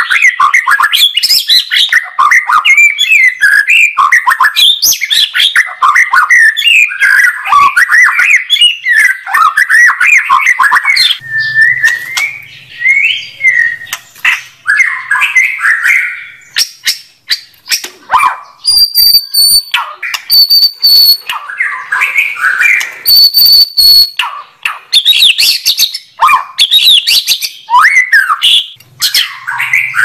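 White-rumped shama singing loudly: a dense stream of rapid, varied whistled and chattering phrases, easing briefly past the middle, followed by a few clear high whistled notes.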